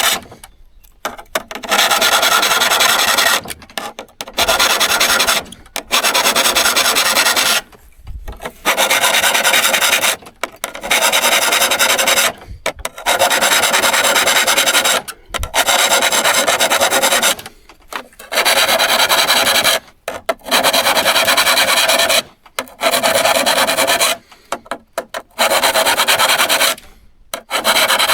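Hand abrading of a steel handsaw blade: a rasping, scraping sound in long back-and-forth strokes, about a dozen of them, each a second or two long with short pauses between.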